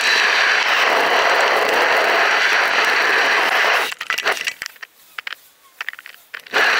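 Wind rushing over the microphone of a bicycle-mounted GoPro while riding. It cuts off suddenly about four seconds in, leaving a much quieter stretch with scattered light clicks. The loud rushing comes back near the end.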